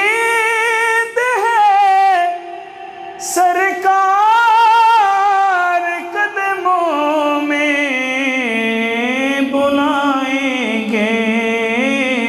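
An Urdu naat (devotional song) sung in long, held, ornamented notes with vibrato. A steady lower tone joins underneath about seven seconds in.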